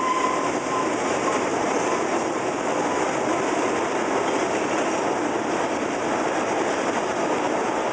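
Freight train of boxcars rolling past at close range: a steady rumble and rattle of steel wheels on the rails, with a brief high squeal in the first second.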